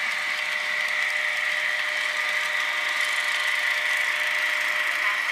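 HO-scale model trains running: a steady whirring hum of model locomotive motors and metal wheels rolling on the track, with faint ticking from the passing coaches.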